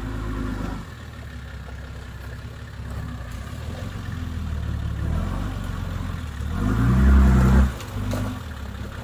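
A four-wheel drive's engine running at low speed on a rough track, revving up about two-thirds of the way through and dropping back abruptly.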